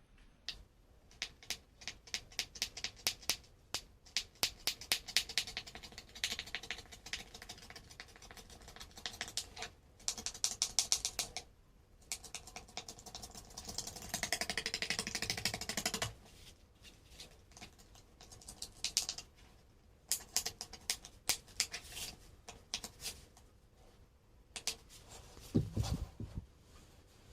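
Runs of rapid, sharp mechanical clicks broken by short pauses, with a stretch of steady scraping about two-thirds of the way in and a low thump near the end: hand tools working on cardboard.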